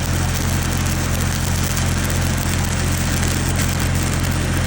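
Stick (SMAW) welding arc crackling and sizzling steadily, over the low, even hum of the welding machine.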